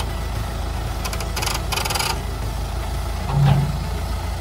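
Ford compact tractor engine idling steadily. A short rattling burst comes about a second and a half in, and a brief, louder low sound comes near the end.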